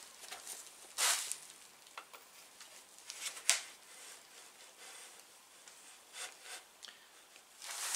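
Handling noises from a bicycle saddle on its seatpost being turned in the hands: short rustles and light clicks, with a rustle about a second in and a sharp click about three and a half seconds in.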